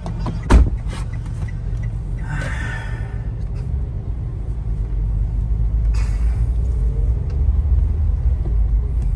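Car driving slowly, a steady low rumble of engine and road, with a sharp thump about half a second in and a brief hiss a couple of seconds later.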